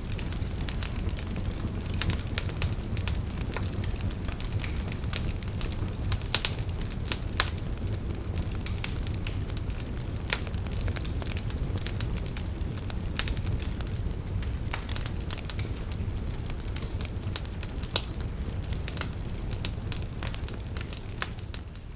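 Wood bonfire crackling, with frequent sharp pops and snaps over a low steady rumble of flames, fading out near the end.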